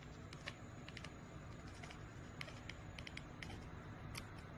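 Quiet room tone with faint, scattered light clicks and ticks.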